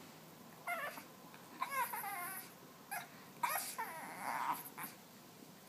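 Shih Tzu puppy grunting in several short bursts, some of them sliding down in pitch.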